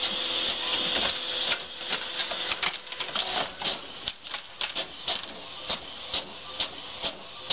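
A printer running, with sharp clicks repeating about two or three times a second over a steady whirring hiss.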